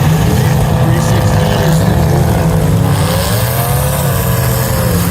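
Demolition derby cars' engines running in a loud, steady rumble, with one engine revving up and back down about three to four seconds in.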